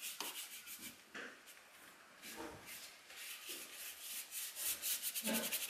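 Sumi ink brush laid on its side and scrubbed across painting paper: quick, repeated scratchy strokes of the bristles on the paper, growing louder near the end.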